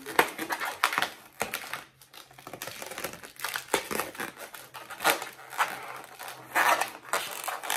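Latex twisting balloon being twisted and handled, its rubber squeaking and rubbing in quick, irregular squeaks and crinkles.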